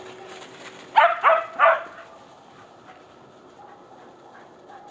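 A dog barking three times in quick succession.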